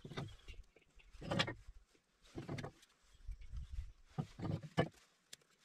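Split wooden kindling sticks being placed and stacked in a steel fire bowl around a newly lit flame: a series of short, separate knocks and rustles, several in quick succession near the end, with low rumbles in between.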